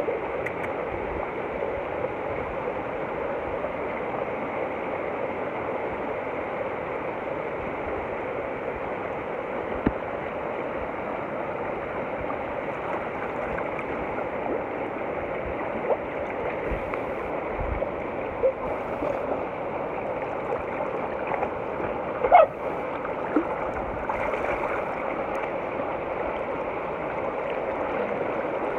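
A rocky river running steadily, its water rushing over boulders. A few brief knocks stand out, the loudest about two thirds of the way through.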